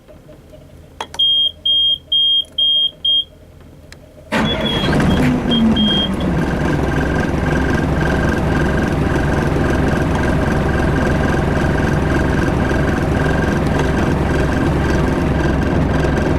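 Yanmar 6CX-ET six-cylinder marine diesel being started: a click and five short high beeps from the engine panel alarm, then about four seconds in the engine cranks and catches suddenly, with a couple more beeps, and settles into a steady run.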